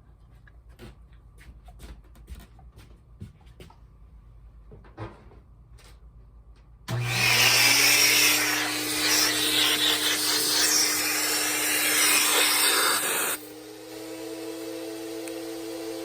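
A few faint handling clicks, then about seven seconds in the HVLP turbine starts, its whine rising in pitch as it spins up, and the Fuji 'M' spray gun sprays water with a loud hiss for about six seconds. The hiss then cuts off and the turbine keeps running with a steady hum.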